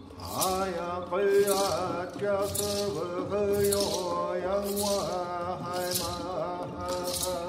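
A man chant-singing a Hopi song, with a rattle shaken about once a second. A string ensemble holds steady chords underneath.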